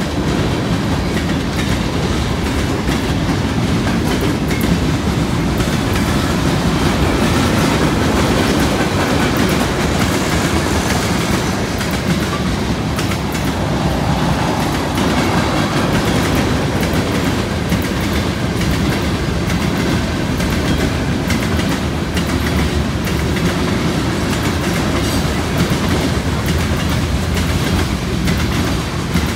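Freight cars rolling past on the near track: steel wheels clacking over the rail joints with a steady rattle of car bodies, unbroken throughout.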